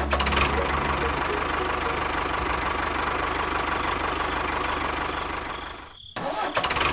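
A small motor running steadily with a fast, even rattle, fading out about six seconds in.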